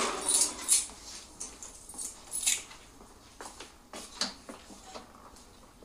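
Footsteps on a hard floor and a door being handled: a dozen or so irregular light clicks and knocks, a few sharper and brighter.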